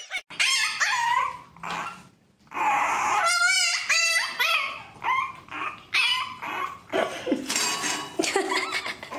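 A dog whining and yipping: short cries, a brief pause about two seconds in, then a long run of wavering whines and yips from a French bulldog puppy.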